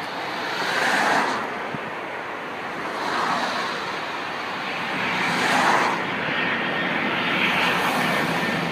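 Airbus A319 airliner on final approach, its engine noise growing as it comes nearer, with a steady high whine coming in about halfway through. Over it, gusts of wind rush in and fade about every two seconds.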